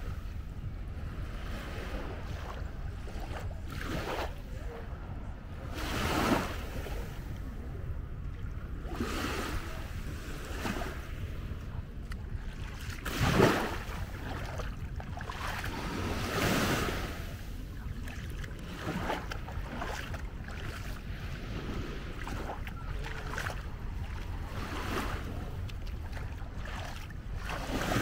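Sea waves washing onto the beach, one every few seconds, over a steady low rumble of wind on the microphone.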